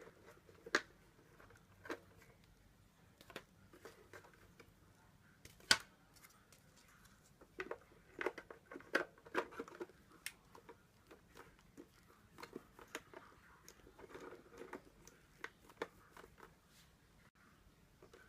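Faint, irregular clicks and light knocks, roughly one every second or two with a few quick clusters, over a soft steady hiss.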